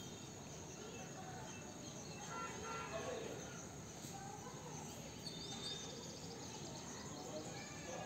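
Rural morning ambience: a steady faint background hiss with a few small bird chirps, the clearest about five seconds in.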